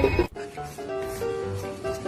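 Background music: a loud, dense passage stops abruptly just after the start, then a melody of held notes plays.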